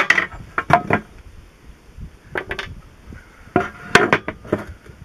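Hammer blows on a wooden drift, knocking the old front oil seal out of an aluminium tractor timing cover: a quick run of sharp knocks in the first second, then a few more scattered knocks and clunks of metal parts on a steel bench.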